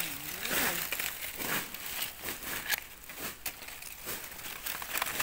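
Dry fallen leaves rustling in short, irregular crinkles as hands push through the leaf litter of a forest floor, searching for mushrooms.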